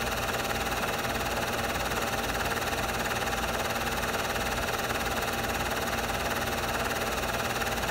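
Super 8 film projector running: a steady whir and hum that does not change, with no other sounds.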